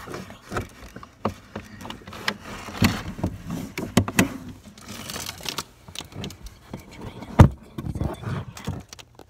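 Close rustling, rubbing and knocking of a phone's microphone against cardboard and clothing as a person shifts about inside a cardboard box, with one loud bump about seven and a half seconds in.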